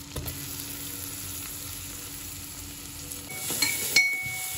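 Chopped onions sizzling in hot oil and butter in a metal pan. They are stirred with a metal slotted spoon, which scrapes and clinks against the pan twice near the end.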